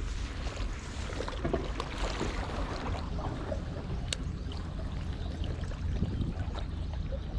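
Steady low rumble of wind and sea water, with scattered light ticks and one sharp click about four seconds in.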